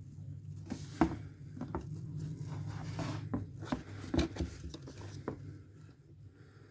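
Irregular light clicks and knocks from a Powerslide HC EVO Pro inline skate boot's top cuff buckle being handled, the loose buckle on its rivet clicking, over a steady low hum.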